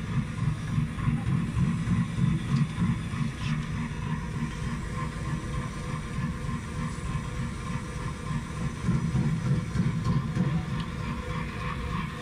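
KP-700 rib-chopping machine running and slicing sausage: a steady low mechanical noise.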